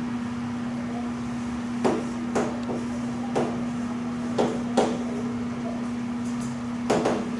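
Chalk tapping against a blackboard in short, sharp, irregular strokes as something is written, over a steady low hum.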